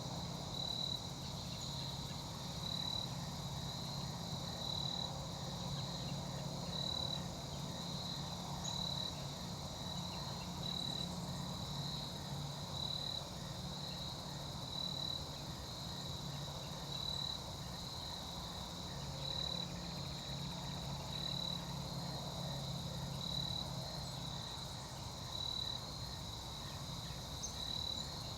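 Insects chirping: a high pulsed call repeating about once a second, over a low hum.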